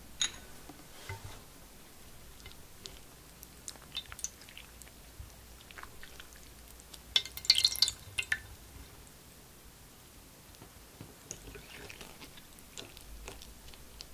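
Gelatin sheets being dropped into a shallow tray of cold water to soften, making a cluster of small splashes and wet clicks about seven seconds in, the loudest sound here. Around it, scattered faint taps and ticks from kitchen utensils and a glass bowl.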